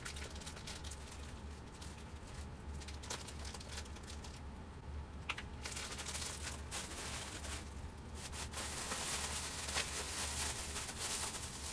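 Thin plastic food bags rustling and crinkling as they are handled and opened, with many small sharp crackles; the crinkling grows denser and louder over the last few seconds.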